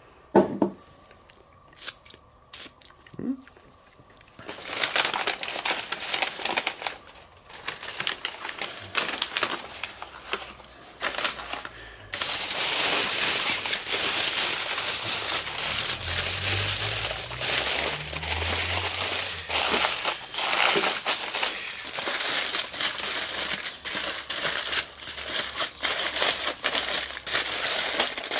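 Butcher paper and aluminium foil crinkling and crumpling as they are folded by hand around a pork roast, after a few light taps at the start. The crinkling starts about four seconds in and turns louder and continuous about twelve seconds in, as the foil is scrunched around the package.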